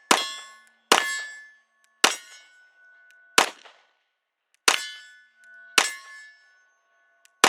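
CZ P-07 9mm pistol firing seven single shots at an uneven pace of roughly one a second. Each shot is followed by a short metallic ring that fades out.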